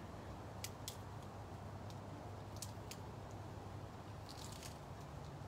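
Close eating sounds: a person biting and chewing a lettuce wrap, with a few short sharp clicks and crunches, over a steady low hum.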